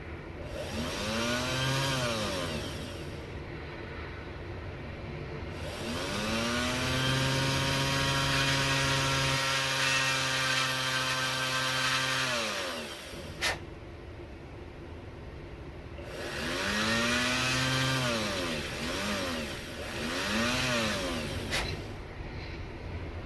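A small electric power tool's motor run in short bursts, its pitch rising as it spins up and falling as it spins down. There is one long steady run of about six seconds in the middle, with shorter runs before and after it. A sharp click comes just after the long run and another near the end.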